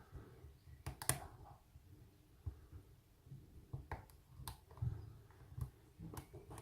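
Lock picking in an American Lock 1205 padlock: a hook pick and tension wrench working the pins, giving scattered faint metallic clicks over soft handling noise.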